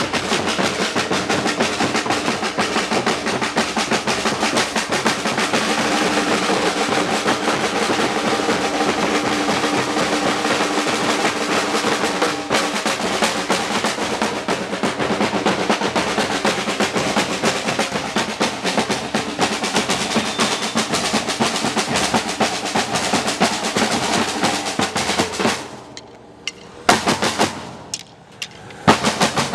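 Batucada drum ensemble playing a dense, driving samba rhythm. About 25 seconds in, the drumming breaks off to a near stop, with a couple of single loud hits, then the full group comes back in right at the end.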